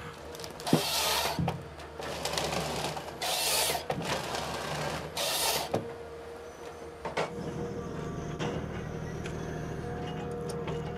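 Komatsu forestry harvester at work: a steady engine and hydraulic hum, with three short bursts of harsh noise and several sharp cracks in the first half as the harvester head saws and strips logs.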